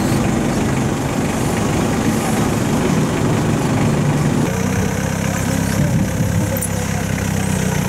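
An engine idling steadily. It cuts in abruptly, and its note changes about halfway through.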